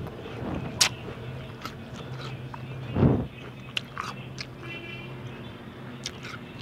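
Close-miked chewing of food: mouth clicks and smacks, with the sharpest click a little under a second in, and a dull thump about three seconds in, the loudest sound.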